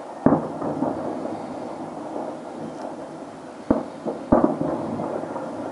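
Distant fireworks salute shells bursting with deep booms. One bang comes just after the start and two more come about half a second apart some three and a half seconds later. Each is followed by a rolling rumble, with a continuous low rumble of the display between them.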